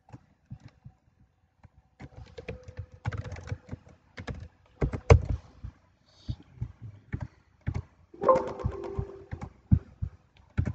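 Computer keyboard being typed on, a quick run of key clicks, followed by a few separate clicks.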